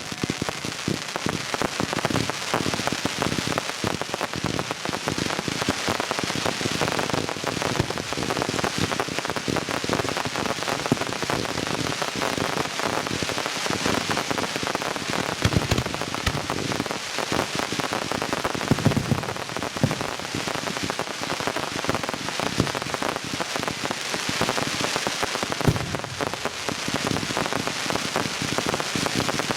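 Fireworks finale: a dense, continuous crackling of many small reports, as from crackle shells, with a few deeper booms in the middle.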